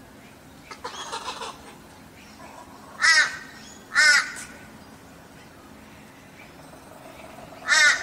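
Laughing kookaburra giving three short, harsh calls, about three seconds in, a second later, and again near the end. A fainter rasping sound comes about a second in.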